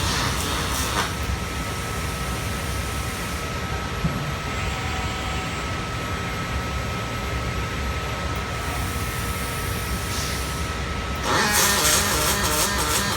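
Robotic arc-welding cell: a steady low mechanical noise with a faint thin whine, then, about eleven seconds in, a louder crackling hiss sets in, the sound of the welding arc on steel.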